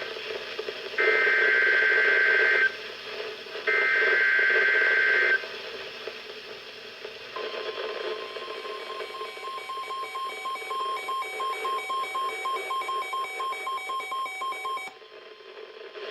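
NOAA Weather Radio Emergency Alert System tones over a radio speaker. First come the last two of the three short, shrill SAME digital header bursts, each about a second and a half long. After a pause, a long alert tone with a pulsing beep over it sounds for about eight seconds and cuts off about 15 seconds in, announcing a new severe thunderstorm warning.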